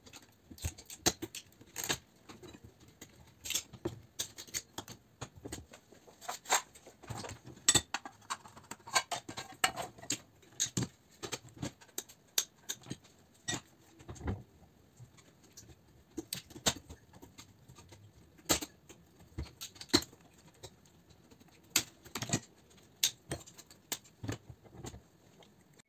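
Wire cutters and pliers working on small metal and plastic lamp parts: an irregular run of sharp clicks, snips and snaps as wires are cut off and pieces are handled and set down on the workbench.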